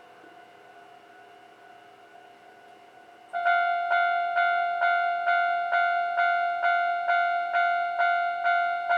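Japanese railway level-crossing warning bell switching on suddenly about three seconds in, then ringing in even dings about two a second: the signal that a train is approaching. Before it, only a faint steady hum.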